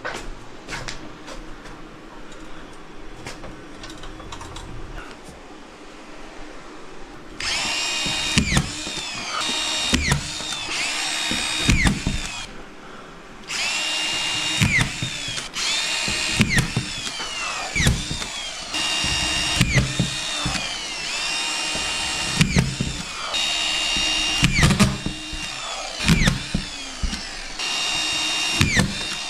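Handheld power drill/driver run in repeated short bursts of whine from about seven seconds in, each ending with the pitch falling as the motor winds down, with knocks and clunks between bursts. Before that there are only quieter scattered clicks.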